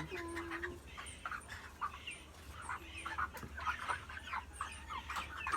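Baby chicks peeping: many short, high chirps overlapping and scattered throughout, with a couple of lower held calls from the chickens.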